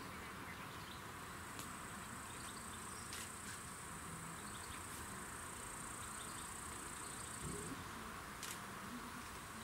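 Insects trilling in one high, steady, continuous band that starts about a second and a half in and stops about two seconds before the end.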